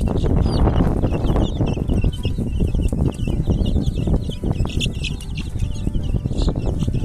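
Many domestic chicks peeping continuously, short high peeps overlapping one another, over a loud low rustling noise.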